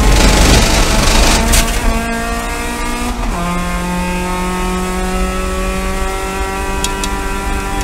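Onboard sound of a Spec MX-5 race car's 2.0-litre four-cylinder engine pulling hard under full throttle, its pitch climbing, with a loud rough rushing noise over the first second and a half. About three seconds in the pitch drops sharply on an upshift, and the engine climbs again in the next gear.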